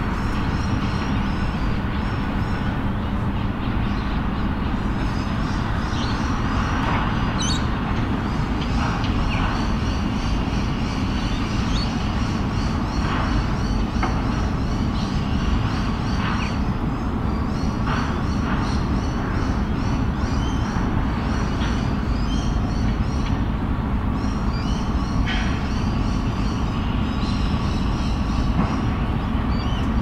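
Small birds chirping and calling now and then over a steady low rumble of city traffic.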